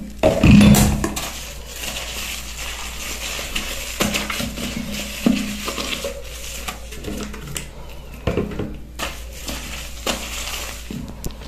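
Wet bathroom washbasin being scrubbed by hand with a soapy sponge and wiped with a cloth: rubbing and wiping noise with scattered knocks against the basin, the loudest a thump about half a second in.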